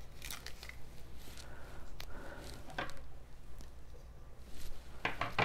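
Faint rustling and a few light clicks of hands handling paper-craft supplies, over a low steady hum.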